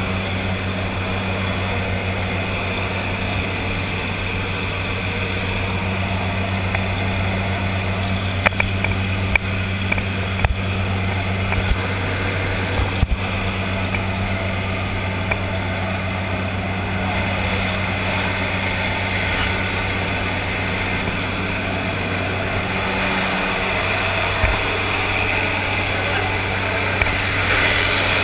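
Jump plane's engines droning steadily inside the cabin, with a few sharp clicks and knocks from gear about a third of the way in. Toward the end a rushing hiss grows louder as air comes in through the open jump door.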